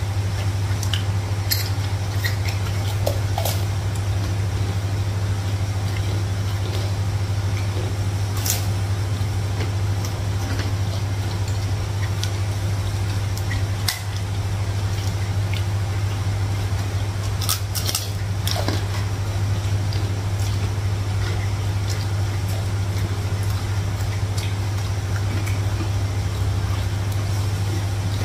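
A steady low hum, with a few light clinks of plates, bowls and spoons as people eat a meal by hand.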